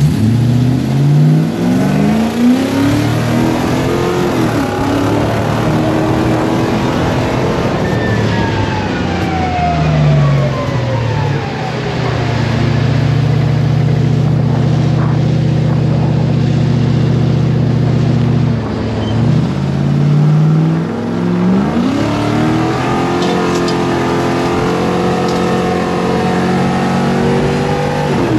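Off-road 4WD vehicle's engine accelerating and revving, its pitch climbing, then falling with a high whine that drops away, holding steady for several seconds, and climbing again twice through the last part.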